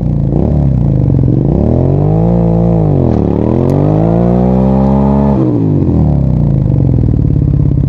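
Suzuki SV650 V-twin with an aftermarket Fuel Exhaust silencer, revving hard while doing a burnout. The revs climb, dip about three seconds in, climb again, then drop back about five seconds in.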